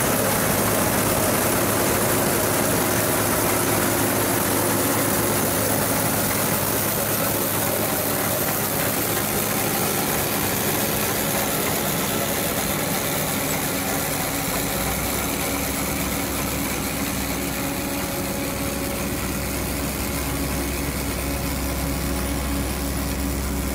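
Asphalt paver's engine and screed running steadily while laying hot mix with a notched wedge joint attachment. A deeper low rumble comes in about fifteen seconds in.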